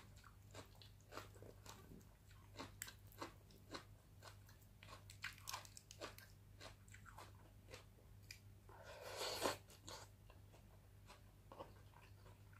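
Faint, close-miked chewing of adobo-braised catfish picked apart by hand: soft wet mouth clicks and smacks scattered throughout, with one longer, louder noise about nine seconds in.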